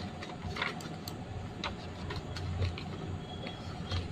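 Scattered light clicks from a laptop being operated with its mouse and keys, several spread irregularly, over a low steady hum.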